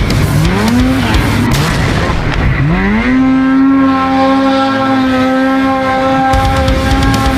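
Snowmobile engine revving up in three short rising bursts, then held at high revs with a steady tone, as the sled runs under throttle.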